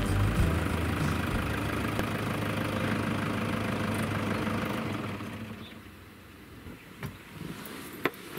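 Toyota Hilux pickup driving slowly past on a gravel track, its engine running and tyres crunching on the stones, fading away from about five seconds in. A couple of sharp clicks follow near the end.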